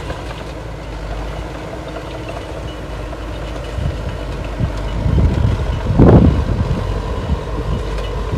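Diesel engine of heavy earthmoving machinery running steadily with a low rumble, swelling louder for a second or two about five to six seconds in.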